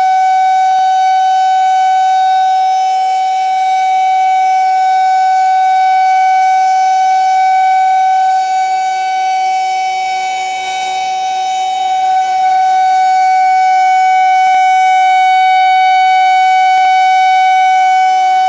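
Federal Signal 2001-130 rotating electromechanical outdoor warning siren sounding a loud, steady single tone held at full pitch. Its rotating horn makes the level dip briefly about halfway through.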